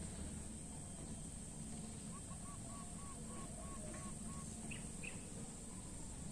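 Outdoor ambience with a steady low background hum. About two seconds in, a bird calls a run of short, even notes, about three a second. Just after that come two brief higher chirps.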